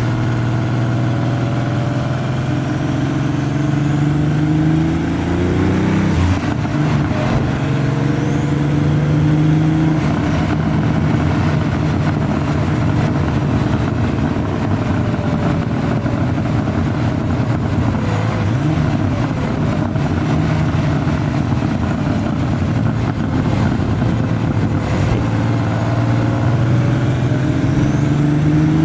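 Porsche 930 Turbo's air-cooled turbocharged 3.3-litre flat-six pulling hard, its note rising and then dropping at two gear changes, cruising steadily, and rising again near the end under acceleration. A faint high rising whistle from the turbo sounds over it as it builds boost.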